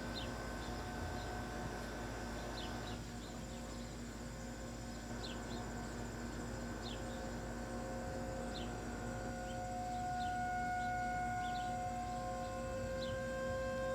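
Distant outdoor tornado warning sirens, a steady wailing tone that grows louder around ten seconds in. Short high chirps repeat every second or two.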